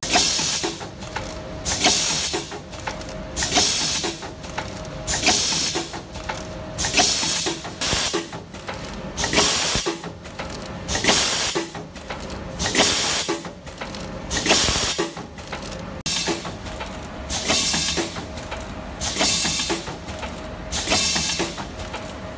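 Vertical sachet packing machine running its cycle: its pneumatic cylinders let out a sharp hiss of exhaust air about every two seconds as the sealing and cutting jaws work, with light clicks and knocks of the mechanism between the hisses.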